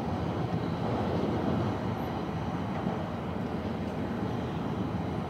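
Steady running noise inside the car of an E5-series Shinkansen travelling at speed: an even rumble of wheels and air.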